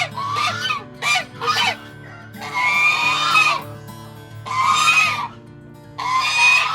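Farm poultry calling: a run of loud, pitched calls, several short ones and longer drawn-out ones about two and a half and four and a half seconds in.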